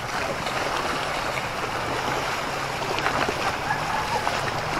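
Lake water splashing and lapping as a paddler strokes a small inflatable dinghy and a swimmer splashes close by, with a faint low steady hum underneath.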